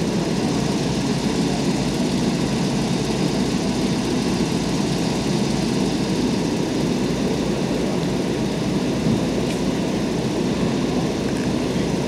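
An engine running steadily at idle, a low, even drone with no change in speed.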